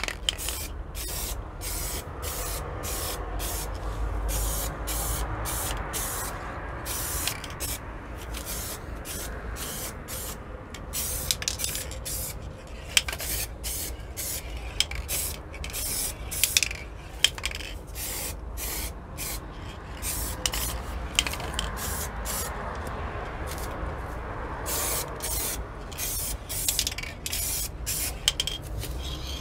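Aerosol spray can of clear coat hissing in many short bursts one after another, with brief gaps between passes, as the protective clear layer goes onto a plastic part.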